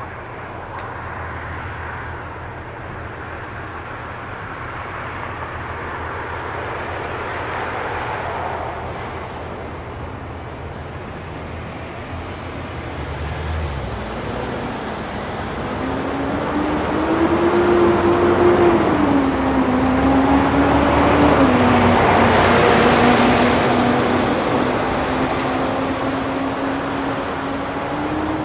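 Rush-hour street traffic at an intersection, with engines idling low and then vehicles pulling away. From about halfway a heavy dump truck's diesel engine accelerates, its pitch climbing and dropping in steps as it shifts through its gears, and it grows loudest a little past two-thirds in as it comes close.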